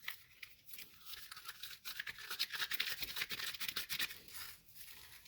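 Brittle, aged insulation of an old machine power cord crackling as the cord is handled and bent: a dense run of fine crackles that starts about a second in and dies away near the end. The crackle is the sign that the insulation has dried out and crumbles, brittle like eggshells.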